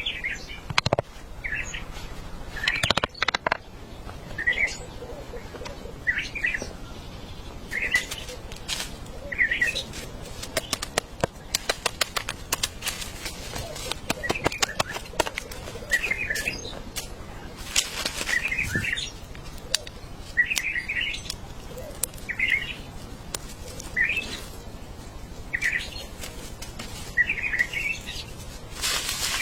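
Rain falling, with scattered sharp drips and taps over a steady patter, while a bird chirps short calls again and again, about one every one to two seconds.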